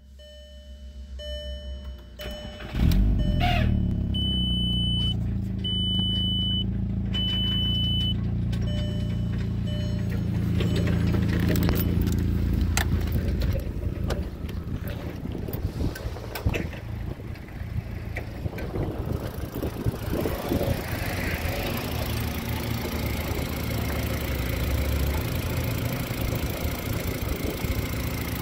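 2002 Volkswagen Jetta's 1.8-litre 20-valve turbocharged four-cylinder engine starting about three seconds in, then idling steadily. A high dashboard warning chime beeps repeatedly over the first several seconds, and later there are footsteps on gravel over the idle.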